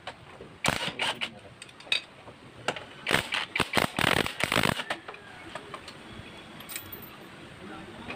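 Cordless impact wrench hammering in short bursts, about seven in the first five seconds, as it spins out engine side-cover bolts; the longest burst comes around four seconds in, and after that only quiet background remains.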